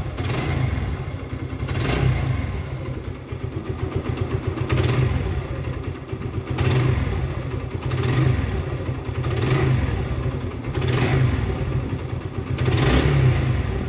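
Suzuki Gixxer's single-cylinder engine running after a full rebuild, revved up and let back down again and again, about every one and a half to two seconds. It is freshly rebuilt with new bearings and not yet run in; the mechanic expects it to sound smoother once it frees up.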